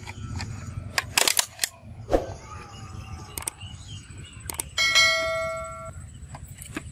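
A bell-like notification ding about five seconds in, ringing and fading over about a second, from a subscribe-button animation. Before it come several sharp clicks, with plastic bottle parts being handled.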